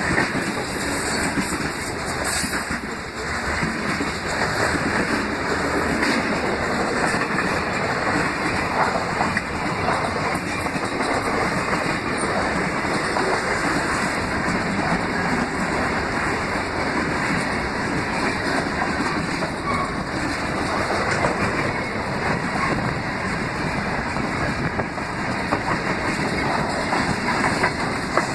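Freight train led by GE AC4400CW diesel locomotives passing close by, with a steady loud rumble of wheels on the rails.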